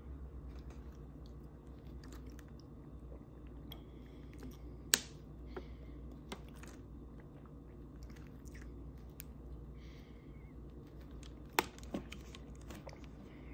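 Drinking water from a thin plastic water bottle: faint swallowing and small crackles and ticks from the plastic. Two sharp clicks stand out, one about five seconds in and one near the end, over a steady low hum.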